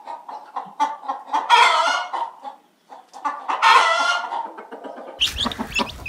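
Rooster crowing, three long crows about two seconds apart. Near the end it cuts to chicks peeping over outdoor background noise.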